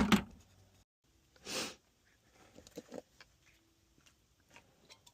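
A short sniff, then a few faint scattered clicks.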